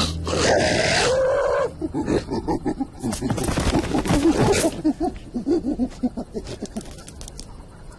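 Cartoon animal vocal effects: the lion's held, wavering startled cry for about the first second and a half, then a run of short, rapid grunts that fade over the last few seconds.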